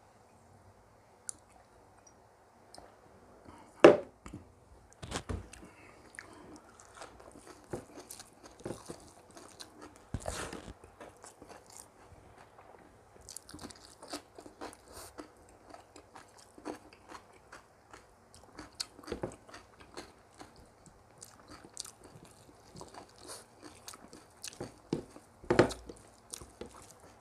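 Close-miked eating sounds: a person chewing and biting food, with irregular wet mouth clicks and crunches. Two louder bites come about four seconds in and near the end.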